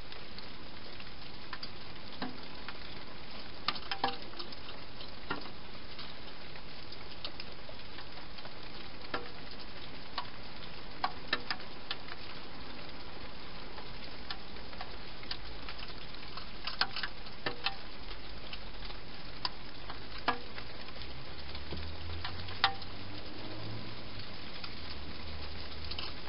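Wild hedgehog eating at the dishes inside a plastic feeding box: irregular crisp crunches and clicks over a steady hiss, with a faint low hum near the end.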